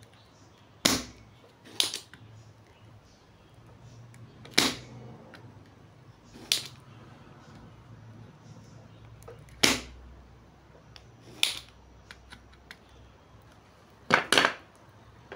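Spring-loaded desoldering pump snapping as it is fired, about eight sharp snaps at irregular intervals, two in quick succession near the end, while diodes are desoldered from a power-supply board.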